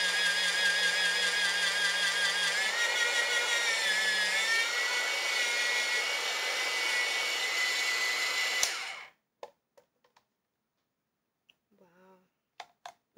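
Presto Salad Shooter's small electric motor running with a steady whine while shredding cheese. The pitch dips briefly about four seconds in as it takes a load, then the motor cuts off suddenly about nine seconds in, followed by a few light clicks.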